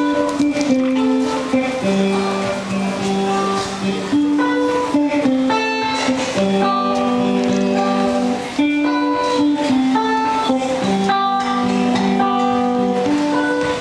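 Live instrumental music led by guitar, playing a melodic phrase that repeats about every four seconds, with no singing yet.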